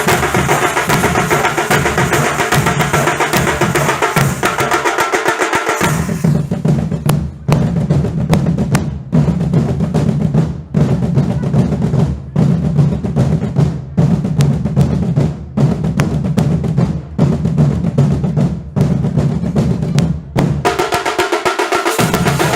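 Nasik dhol ensemble playing: big dhol drums with rapid tasha snare-drum rolls and cymbals. About six seconds in, the tasha and cymbals drop out, leaving the dhols beating a repeating phrase with a short break about every one and a half seconds. The full ensemble comes back in near the end.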